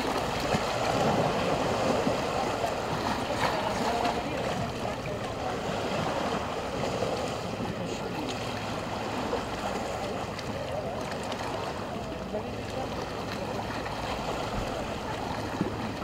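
Small sea waves lapping and washing against a stone shore: a steady wash of water that swells and eases every few seconds, with a few small clicks of water on stone.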